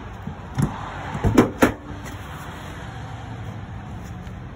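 Minivan's sliding side door being unlatched and slid open: a few sharp clicks and clunks from the handle and latch in the first two seconds.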